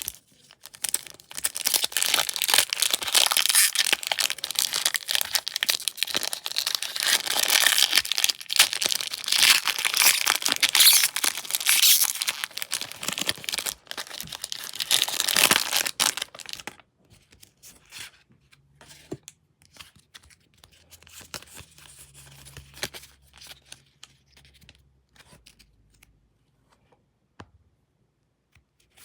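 Pokémon Fusion Strike card packaging being torn open, with crinkling and tearing for about sixteen seconds, then only faint scattered rustles.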